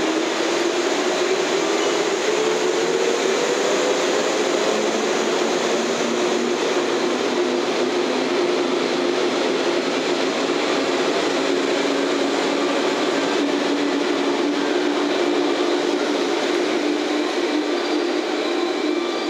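JR West 115 series electric train pulling out of the station: a whining tone rises in pitch over the first few seconds as it gathers speed, then runs steadily over the continuous rumble of the cars rolling past.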